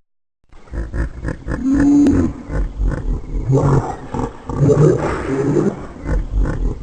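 Designed Parasaurolophus sound effect: low, rough, pulsing dinosaur calls that start after a brief silence, with one held tone about two seconds in.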